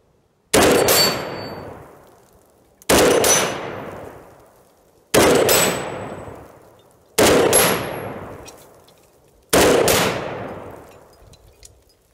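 Five rifle shots from a 10.5-inch-barrel AR pistol in 7.62x39, about two seconds apart, each a sharp crack with a long echoing tail. The first four are each followed by a brief high ring from a steel gong being hit.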